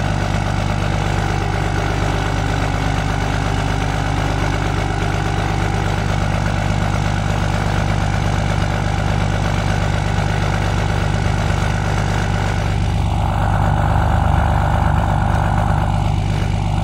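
2007 Dodge three-quarter-ton's 5.9-litre Cummins straight-six turbodiesel idling steadily through 7-inch exhaust stacks, still warming up after a cold start in sub-zero air. A broader rushing sound swells up and gets a little louder about three-quarters of the way through.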